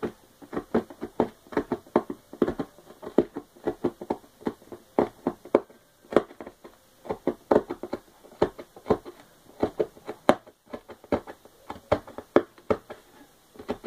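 Ballpoint pen jabbed again and again through a cardboard shoebox lid, punching holes: a quick, uneven run of short taps and pops, about three a second.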